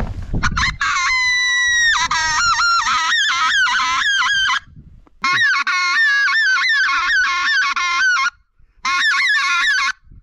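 A flock of wild geese honking, many overlapping calls at once. The calling breaks off abruptly twice and starts again.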